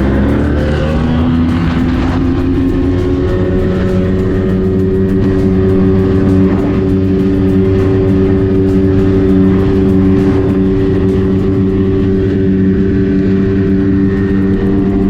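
Mercury 50 hp two-stroke outboard motor on a small RIB. It climbs in pitch over the first couple of seconds as the throttle opens, then holds a steady high pitch at full throttle on a straight top-speed run.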